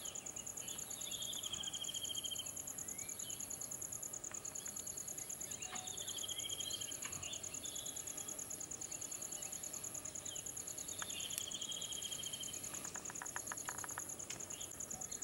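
Forest ambience: insects trill steadily at a high pitch while a bird gives a short falling trill three times, with a few brief chirps and a quick run of rapid clicks near the end.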